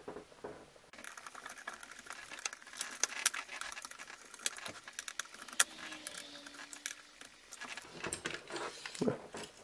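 Small screwdriver working M3 bolts on a plastic model excavator's slew ring, tightening them up: a quick, light run of metal-on-plastic clicks and ticks, with a few sharper clicks.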